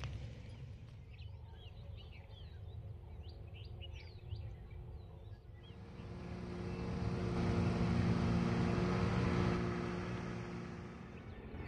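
Small birds chirping in short, quick calls over a low rumble. About halfway through, the sound changes abruptly to a truck going by on a hill road, its engine hum and tyre noise swelling to a peak and then fading away.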